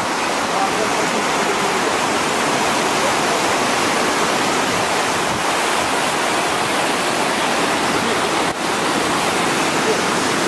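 Steady, even rush of fast-flowing water from a stream that is rising.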